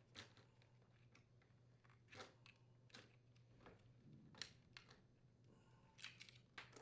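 Faint, scattered clicks and taps of plastic parts being handled, about eight in all, bunched near the end, as the wire connectors are unplugged from a Samsung dishwasher's control panel. A steady low hum sits underneath.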